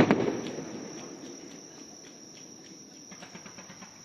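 A firework shell bursting with one sharp bang, its rumble and crackle fading over about a second and a half. Insects chirp steadily throughout.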